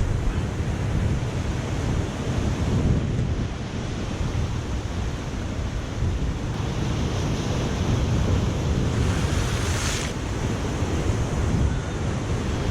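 Ocean surf rushing and breaking, with heavy wind buffeting the microphone. A louder wash of hissing surf swells from about seven seconds in and stops abruptly about ten seconds in.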